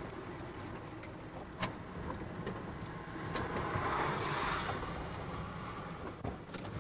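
Car driving on a wet road, heard from inside the cabin: a steady low rumble with a few sharp clicks, and a swell of hiss about four seconds in.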